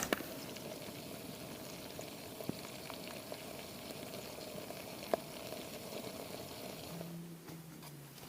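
Camping kettle boiling on a wood-chip camp stove burning pine cones, a steady rushing bubble with a couple of sharp clicks. The boiling sound drops off about seven seconds in.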